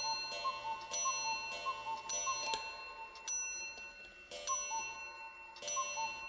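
Clock ticking in an even tick-tock, the ticks alternating between two pitches, over ringing chime-like tones struck every second or so. The chimes drop away for about a second in the middle.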